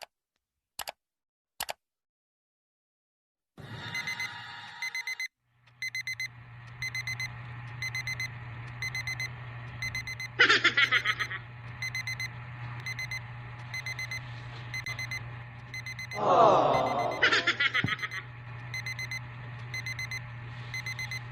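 Electronic alarm beeping in a steady repeating pattern, about two beeps a second, over a constant low hum. It starts a few seconds in, after three short clicks, and is broken by a few short, louder noises partway through.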